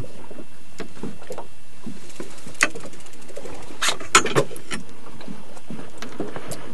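Steady background noise on an open fishing boat, with a few sharp knocks and clicks a little past halfway.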